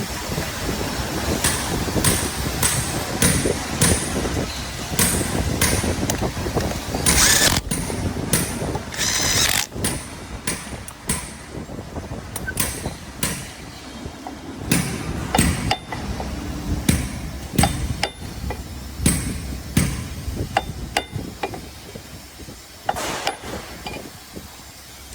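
Hand tools clanking and tapping on the steel blade and bolts of a copper wire granulator's cutter. Separate sharp metallic knocks, roughly one or two a second, some with a brief ring.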